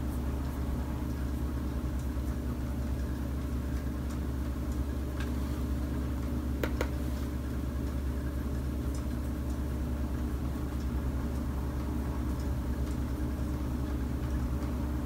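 A steady low hum that holds at one level, with a couple of faint clicks about five and seven seconds in.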